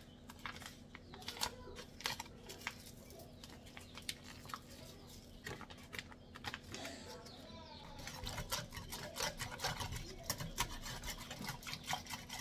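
Wire whisk clicking against the inside of a ceramic slow-cooker crock while stirring powdered gravy mix into milk, a string of light taps that gets busier and a little louder in the second half.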